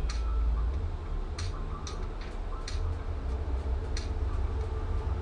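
About a dozen light, irregular clicks and taps from a foil-covered piece of cardboard being handled, over a steady low hum.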